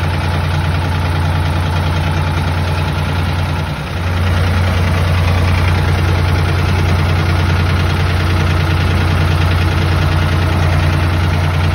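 Tractor engine running steadily, heard from inside the cab. About four seconds in it dips briefly, then runs a little louder.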